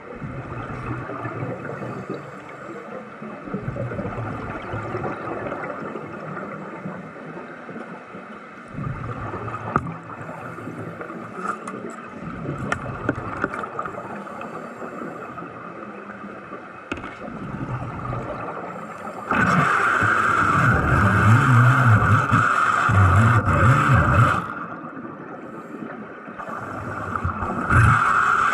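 Underwater bubbling and gurgling from a diver's exhaust bubbles. About two-thirds of the way in, a louder steady hissing buzz comes in, lasts about five seconds and cuts off, then starts again near the end.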